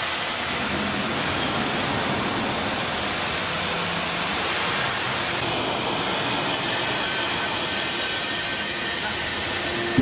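Steady, even rushing noise like a heavy hiss, with no separate knocks, tones or rhythm in it.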